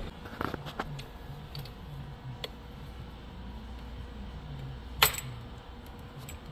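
Scattered light clicks and knocks, with one sharp, loud click about five seconds in.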